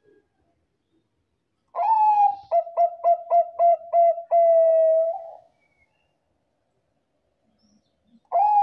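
Zebra dove (perkutut, Thai 'Bangkok' singing strain) cooing its song: a long opening coo, then a quick stuttering run of short notes, ending on a long held coo. A second song begins near the end.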